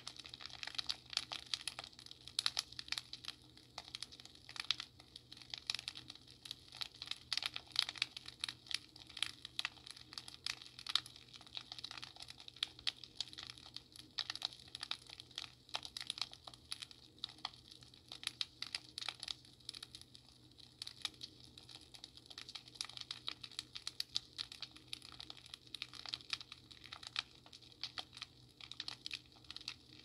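Fireplace crackling: a dense, irregular stream of small pops and snaps, several a second, over a faint steady low hum.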